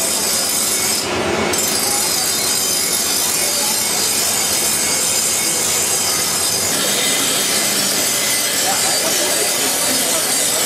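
Ribbon blender running: its electric motor and gearbox turning the ribbon agitator in the stainless steel trough, a steady rough mechanical noise with a strong hiss.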